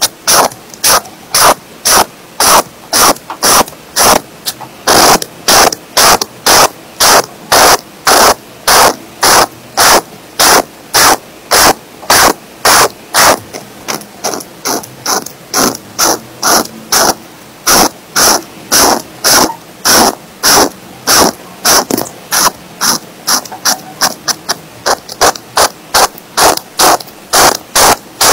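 Felt-tip marker nib scratching back and forth on textured paper while colouring in a shape, a steady rhythm of short rasping strokes, about two to three a second and a little quicker near the end.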